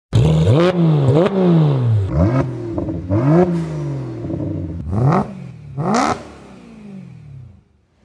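BMW 1M coupe's twin-turbo straight-six being revved through its exhaust in about six blips, each a quick rise in pitch and a slower fall back. The last rev dies away near the end.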